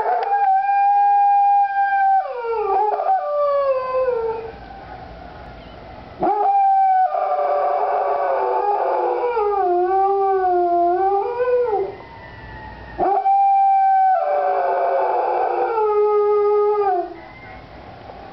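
Dog howling along to fire truck sirens: three long howls, each starting on a held note and then sliding down in pitch with a wavering tail, with short pauses between them.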